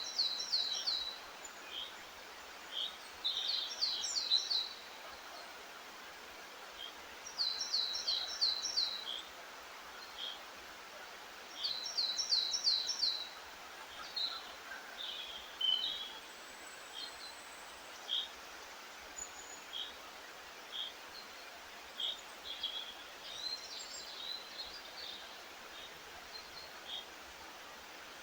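Songbirds singing: one repeats a short phrase of five or so quick, falling high notes about every four seconds in the first half, while another gives single short chirps about once a second throughout, over a steady hiss.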